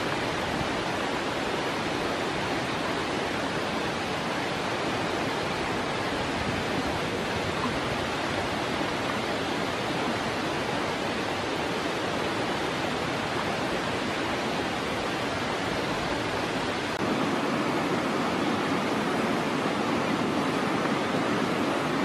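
Steady rush of water pouring over rocks, an even noise with no break; about 17 seconds in it turns a little louder and fuller.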